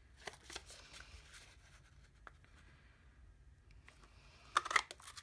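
Light paper rustling as a double layer of Post-it notes is handled, then near the end a few sharp clacks as a 1.5-inch circle craft punch cuts through them.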